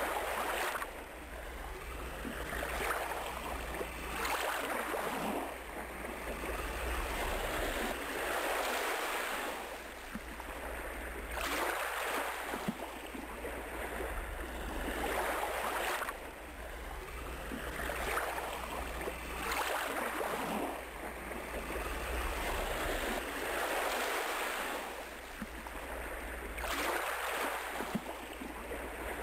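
Ocean surf washing in and ebbing in repeated swells every few seconds, over a steady low rumble.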